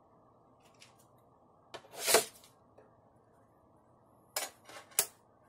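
Swingline guillotine paper trimmer's blade shearing through a sheet of aluminium foil: a single crisp swish about two seconds in, followed near the end by a few foil rustles and a sharp click.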